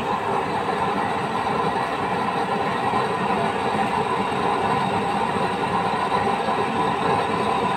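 Homemade cement waste-oil stove burning with a steady, even rushing noise from its blue flame.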